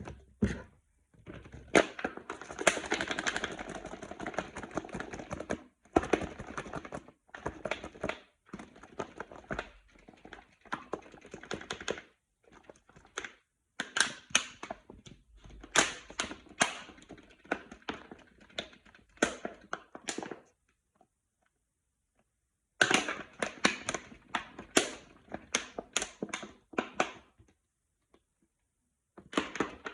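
Runs of rapid, irregular clicks and taps from slime and its bottle being handled, broken by short silences.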